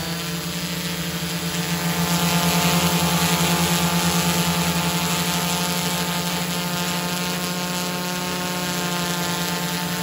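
Quadcopter's four electric motors and propellers running as it hovers, a steady buzzing whine made of many layered tones. It gets a little louder about two seconds in, then holds steady.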